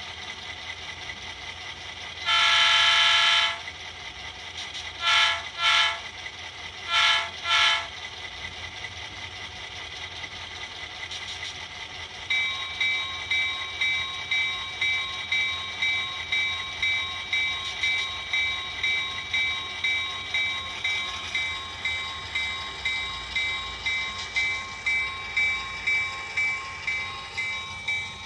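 Model locomotive DCC sound decoder playing an EMD SD9 diesel's horn through its small speaker: one long blast, then four short blasts in two pairs. Then the locomotive bell starts ringing at about two strokes a second and keeps going, over a steady low hum.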